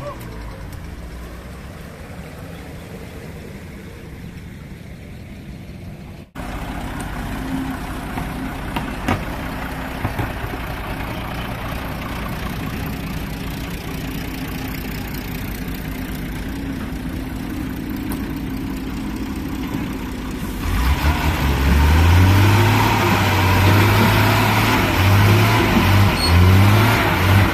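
Log-laden truck's diesel engine running in mud, steady at first, then revved hard about twenty seconds in, pulsing up and down as the truck labours.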